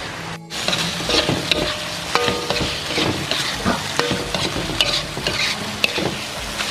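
Spice paste sizzling in a wok while a metal spatula stirs and scrapes it, with many short scraping strokes and a few brief metallic rings from the pan.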